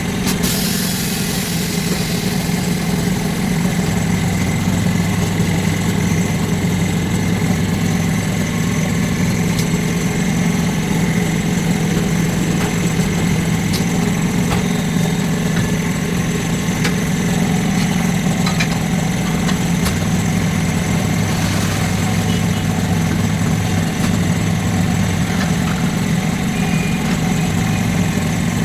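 A machine running steadily with a low, even hum, and occasional light clicks and taps.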